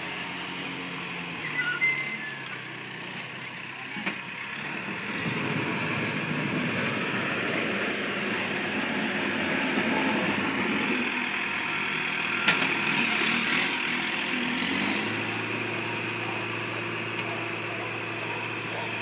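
Backhoe loader's diesel engine running, growing louder and rougher in the middle, then settling to a steady hum about fifteen seconds in. A single sharp knock about twelve seconds in.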